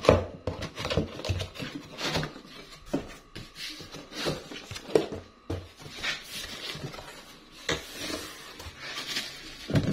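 Cardboard box being opened by hand: irregular rustles, scrapes and knocks of the flaps and the packing inside, with the sharpest sound at the very start.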